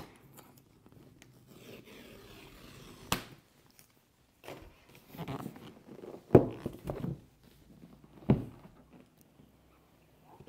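Cardboard packaging of an Apple Vision Pro being handled: the outer sleeve scraping as it slides off the box, with a sharp click about three seconds in and two knocks of the box against the table about six and eight seconds in, the first the loudest.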